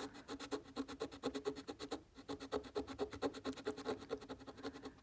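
A coin scratching the coating off a scratch-off lottery ticket in quick back-and-forth strokes, about ten a second, with a brief pause about two seconds in.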